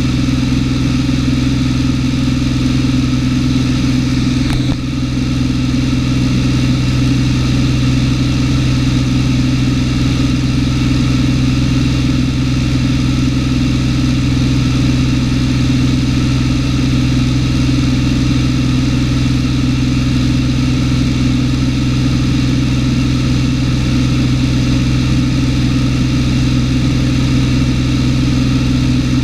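Cessna 210's single piston engine and propeller droning steadily, heard from inside the cabin. There is one brief dip in level about five seconds in.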